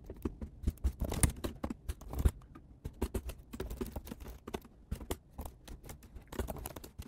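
Computer keyboard typing: quick, irregular key clicks coming in uneven runs with brief pauses.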